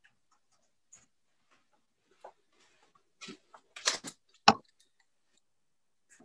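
Darts being pulled out of a dartboard and handled: a few light clicks and rustles, with a sharper click about four and a half seconds in.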